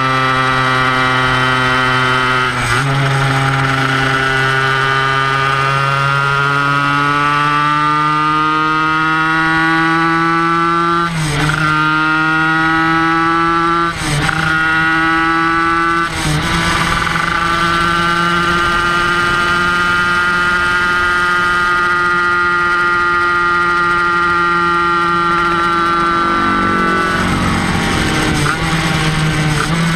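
Kreidler Van Veen 50cc two-stroke racing motorcycle engine held at high revs on the track, its pitch climbing slowly through each gear. Quick gear changes break the note about three, eleven, fourteen and sixteen seconds in, and the revs drop near the end.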